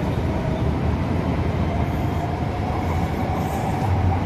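SMRT C751B (Kawasaki-Nippon Sharyo) metro train departing along an elevated viaduct: a steady running rumble of wheels on rail, with a faint whine that rises slightly in pitch as the train gathers speed.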